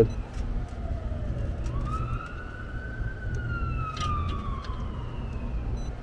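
An emergency vehicle siren wailing, rising slowly in pitch about two seconds in and then falling slowly, over a low steady hum.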